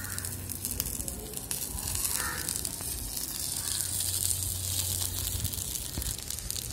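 Pieces of fish shallow-frying in a little groundnut oil on a black iron griddle over a wood fire: a steady sizzle full of fine crackles.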